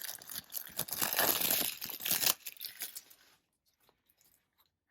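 Plastic packaging crinkling and tearing as it is handled and pulled open, with a dense crackle that stops about two and a half seconds in.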